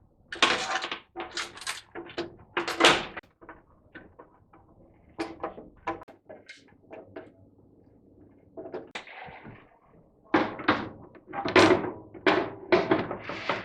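Oven door panels and hinges being handled and fitted back together: a series of sharp metal clunks, knocks and rattles, sparse in the middle and coming thick and fast over the last few seconds.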